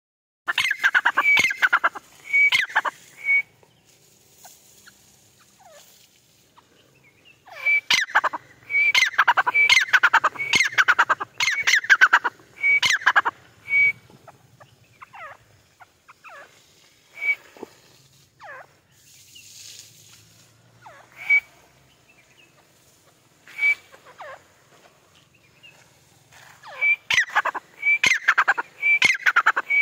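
White francolin (teetar) calling in loud bouts of rapid, shrill repeated notes, each note sliding downward in pitch. There are three bouts: at the start, from about 8 to 14 seconds, and again near the end. Scattered quieter single falling calls come in between.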